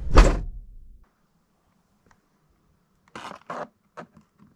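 A car's rear hatch shutting with a single loud thud just after the start, dying away within about a second. After a near-silent gap, four or five short crinkly scrapes near the end as a toy car's plastic blister pack is handled.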